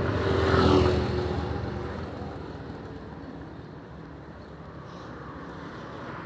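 A motor scooter passing close by, its engine loudest about a second in and then fading as it rides away.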